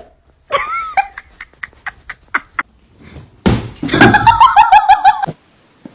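A person laughing hard in a quick run of ha-ha-ha pulses, starting with a sudden loud hit about three and a half seconds in. Before it come a short vocal sound and a handful of quick clicks or taps.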